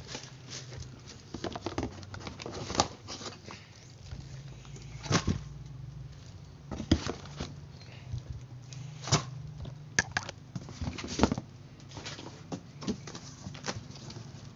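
Cardboard box and packaged parts being handled: irregular rustles, knocks and clicks as items are moved about, over a steady low hum.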